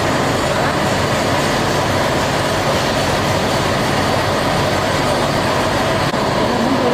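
Factory machinery running steadily: a constant dense noise with a faint steady low hum underneath.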